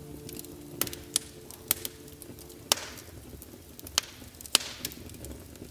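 Log fire crackling: a handful of sharp pops and snaps, about seven, irregularly spaced over a faint hiss.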